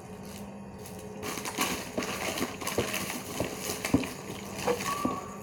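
Handling noise: crinkling and rustling with many small clicks and knocks, starting about a second in, as squishy toys are rummaged through and picked up.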